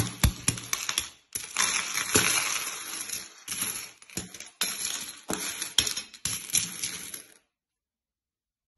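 Many euro coins clinking and sliding against each other and against broken ceramic shards as a hand rakes through the heap, with a few sharp knocks near the start. The sound cuts off abruptly about seven and a half seconds in.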